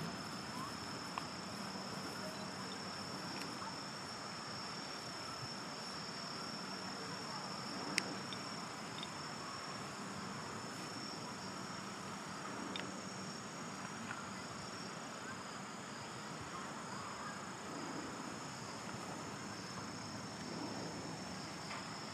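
A steady, high-pitched insect chorus with one sharp click about eight seconds in.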